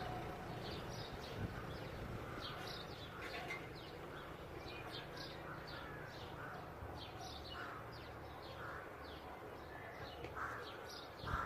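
Outdoor birds calling over a low, steady background rumble: many short, quick high calls, a few a second, mixed with some lower calls.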